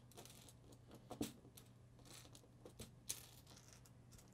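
Faint, scattered clicks of small plastic LEGO round studs being pressed onto a LEGO mosaic, with fingers brushing over the studs. The sharpest clicks come about a second in and about three seconds in, over a faint low hum.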